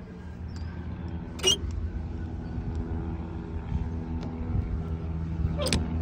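Steady low hum of an idling vehicle engine. A sharp click comes about a second and a half in and another near the end, as the van's fuel filler door is opened and the CNG filler cap is handled.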